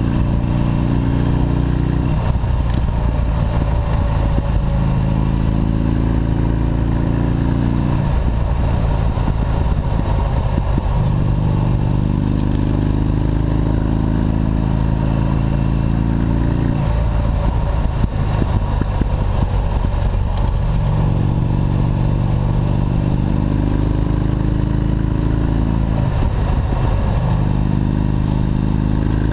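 V-twin motorcycle engine heard from the rider's seat, its note rising and falling with the throttle, broken several times by rougher, noisier stretches of a few seconds, with wind rush underneath.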